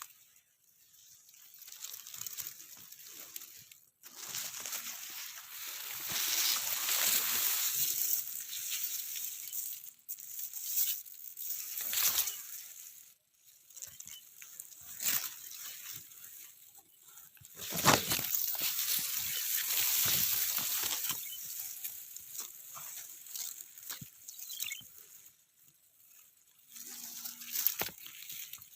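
Rustling hiss of ripe, dry wheat stirred by wind, swelling and fading in gusts, with a few abrupt breaks. A stronger gust about two-thirds of the way through also buffets the microphone.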